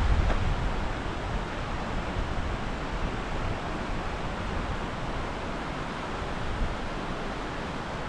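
Steady outdoor rushing noise, with uneven low rumbles of wind buffeting the microphone, strongest just at the start.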